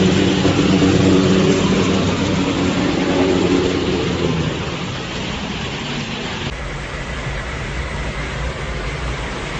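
A motor vehicle's engine running under a steady rushing noise, fading out after about four seconds. About six and a half seconds in, the sound cuts abruptly to a steady low rumble and hiss.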